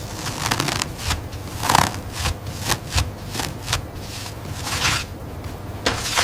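Irregular clicking and clacking, two or three knocks a second, over a low steady rumble.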